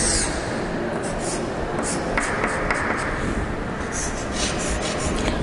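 Chalk scraping on a chalkboard in a few short strokes as a line is drawn, over a steady background hiss.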